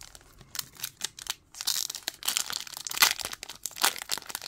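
Foil wrapper of a trading-card pack crinkling and tearing as it is pulled open by hand. The crackling is sparse at first and gets busier and louder from about a second and a half in.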